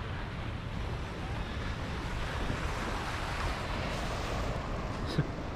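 Small waves washing onto a sandy shore, with wind buffeting the microphone. A short knock about five seconds in.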